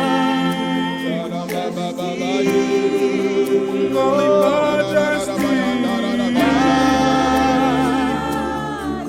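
Gospel worship singing: voices hold long, wordless notes with vibrato, moving to a new pitch every second or two, over steady sustained chords underneath.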